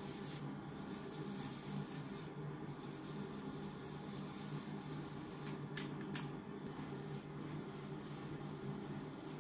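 Steady low hum of a small tiled bathroom, with two short soft rustles close together about six seconds in.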